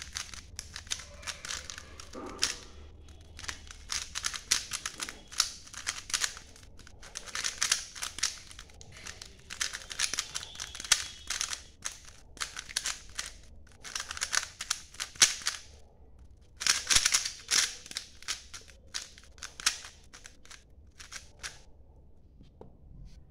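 A 3x3 speed cube being turned fast by hand in a timed solve: rapid plastic clicking and clacking of the layers, in flurries of a second or two with short pauses between them, stopping about two seconds before the end.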